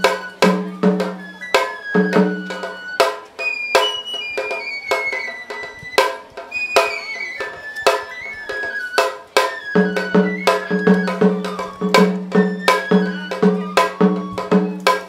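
Japanese shrine festival music: a bamboo transverse flute plays a melody over steady stick strikes on laced shime-daiko and a larger taiko drum. The ringing low drum beat drops out for several seconds in the middle while the flute's tune steps downward, then returns about ten seconds in.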